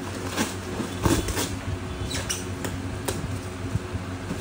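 An accessories box being opened and handled: scattered clicks, taps and scratchy rustles over a steady low hum.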